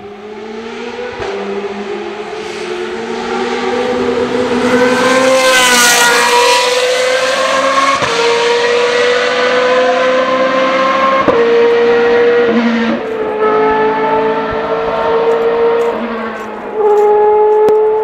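GP2 Series race car's V8 engine at full throttle, accelerating through the gears: the pitch rises over the first several seconds, then climbs and steps with each gear change. The sound jumps suddenly louder near the end.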